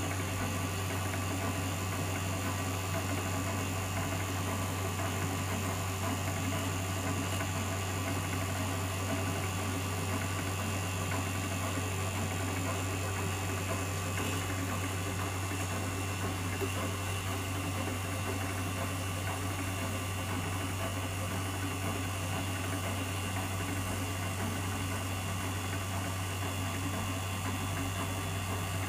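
LCD separator machine running with a steady low hum: its vacuum pump holds the screen down while the motor-driven steel cutting wire runs to slice the cover glass off the LCD.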